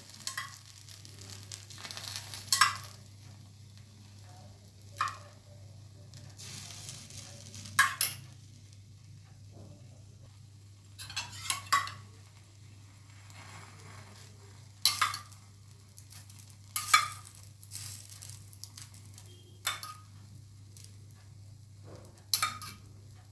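Bread frying in a pan with a faint sizzle, while a utensil scrapes and clinks against the pan in short strokes every couple of seconds.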